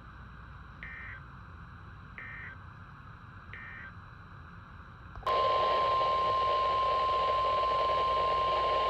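Weather radio alert signalling: three short bursts of EAS/SAME digital data tones about a second and a half apart, then, about five seconds in, the loud steady 1050 Hz warning alarm tone over static, marking the start of a new warning.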